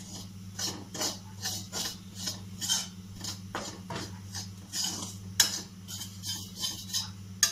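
A spoon scraping and stirring flour as it roasts in butter in a steel pan, the first step of a white sauce roux: quick repeated scrapes about three a second, with one sharper clink about five and a half seconds in.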